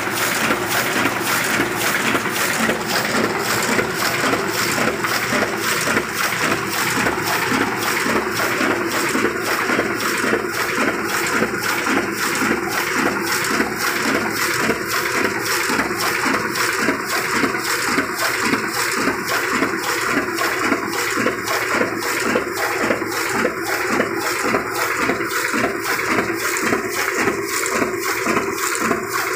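Heidelberg GTO 46 single-colour offset printing press running at speed: a steady mechanical rush of rollers and sheet handling with a fast, regular beat, about three a second.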